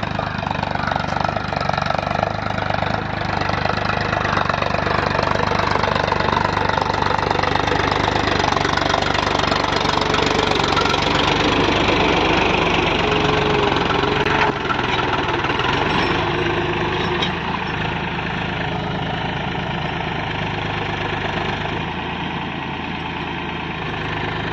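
Powertrac Euro 50 diesel tractor engine running steadily under load while pulling a disc harrow through the soil. It grows louder as it passes close in the middle, then eases off.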